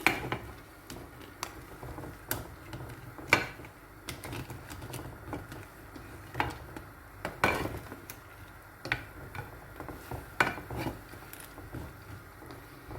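Cooking utensil clinking and knocking against a pot while instant noodles are stirred in boiling water, in irregular strokes about every second, the loudest about three and seven and a half seconds in.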